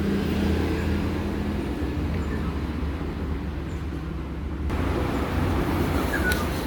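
Steady low hum with a continuous background rumble.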